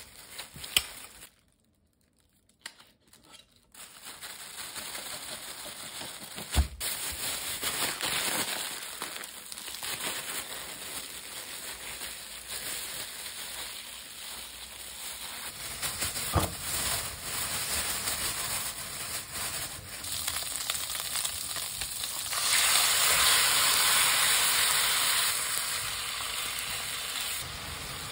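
Food sizzling in a frying pan: a steady hiss that swells louder for a few seconds near the end, with a couple of sharp knocks along the way.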